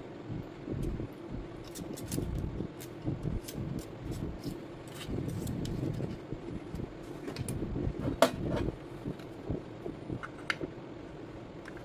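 Small metal parts and hand tools being handled while a Makita 2012NB planer is worked on: scattered clicks and light clinks, with one sharper knock about eight seconds in, over a low background rumble.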